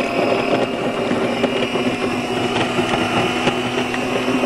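Chef Wiz kitchen workstation's food processor motor running steadily at full speed, shredding vegetables, with a few sharp ticks from pieces striking the bowl.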